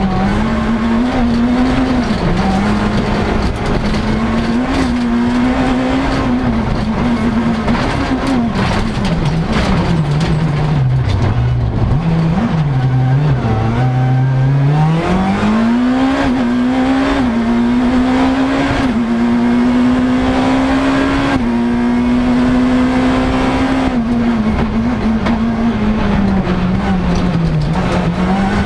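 Škoda Fabia S2000 rally car's 2.0-litre four-cylinder engine running hard through the gears, heard from inside the cabin. The engine note rises and dips with each shift, drops low for a few seconds around the middle as the car slows, then climbs back and stays high.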